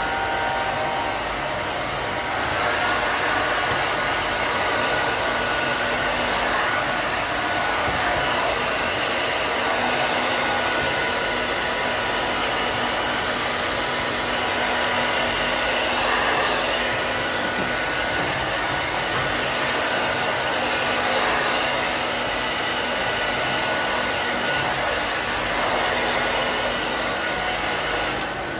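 Handheld hair dryer running steadily, blowing air over a young rabbit's fur: an even rush of air with a faint steady whine on top.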